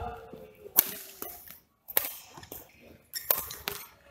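Badminton rackets striking a shuttlecock in a doubles rally: about four sharp cracks, the loudest about a second in.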